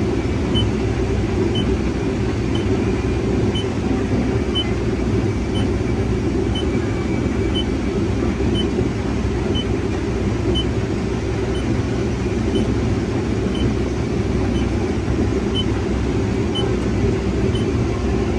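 Farm harvest machinery running steadily: a deep, even engine rumble with no change in pitch. A faint, short, high beep repeats about once a second over it.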